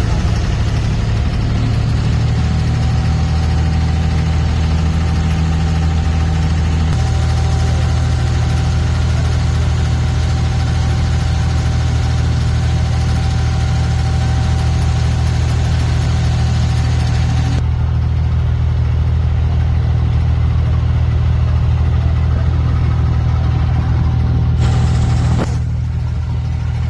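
Inboard diesel engine of an abra water taxi running steadily under way, a constant low drone heard from on board.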